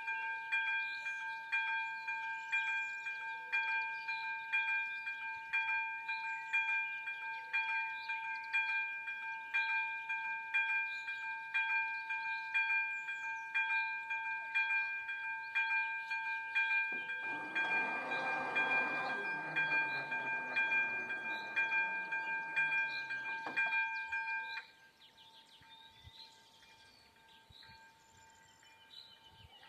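Level-crossing warning bell ringing in even strikes, about one and a half a second, while the crossing is closed for a train. Past the middle a passing train's noise swells for several seconds, falling in pitch as it goes, and the bell cuts off suddenly about 25 seconds in.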